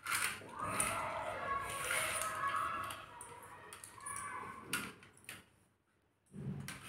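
A young child's wordless vocalizing, pitched and wavering, for about two and a half seconds, then softer voice sounds and a few light knocks.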